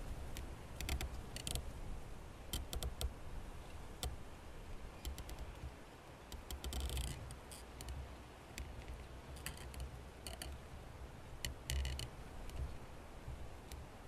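Quiet outdoor ambience: a low, uneven rumble with scattered sharp clicks and a few short raspy bursts, one near the middle and one about twelve seconds in.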